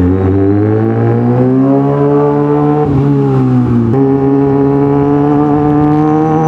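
Kawasaki Ninja ZX-6R 636's inline-four engine pulling under way, its note climbing in pitch, then dropping about three seconds in and sharply again about four seconds in as it shifts up, then running steady.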